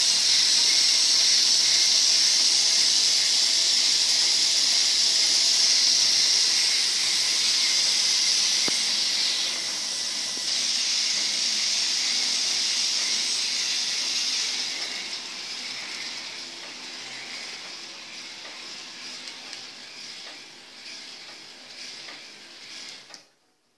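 Several small K'NEX electric motors driving plastic gear trains and differentials, a steady high-pitched whir. It weakens in steps through the second half as motors are switched off, and stops just before the end.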